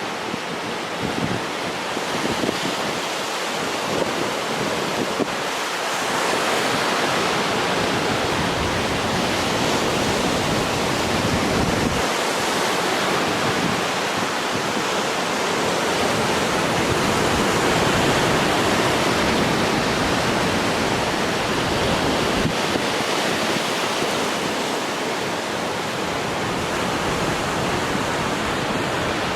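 Sea waves breaking and washing up the beach in a steady rush of surf. It grows a little louder about six seconds in.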